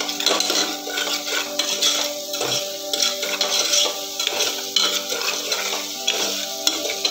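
A steel ladle stirs and scrapes chopped onions frying in ghee in a steel pot, with steady sizzling and frequent clinks and scrapes of the ladle against the pot. Held notes of background music run underneath.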